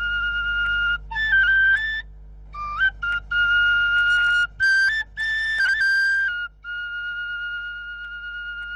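Solo flute melody. Long held notes with short stepwise runs up and down, and a single note sustained for the last few seconds.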